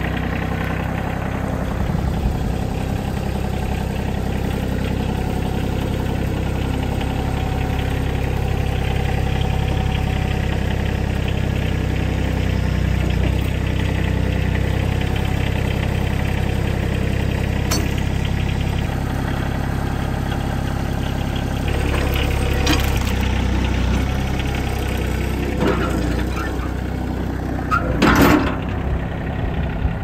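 Kioti CK30 compact tractor's diesel engine running steadily under load as its front loader carries and sets down a log, the engine note shifting about two-thirds of the way through. A few short metal knocks and clanks, the loudest near the end.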